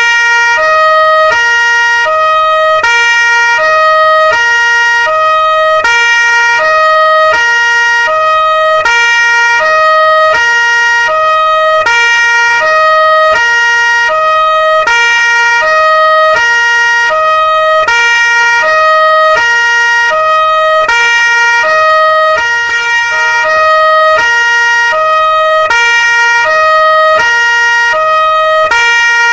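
Two-tone police siren sounding continuously, switching between a high note and a low note, about one of each per second.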